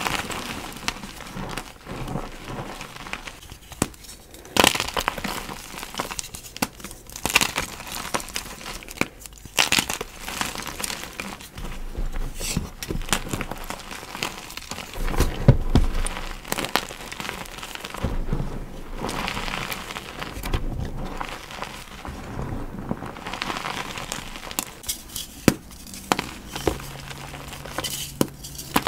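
Blocks of gym chalk crunching and crumbling, with crinkling, tearing and sharp cracks, the loudest about halfway through.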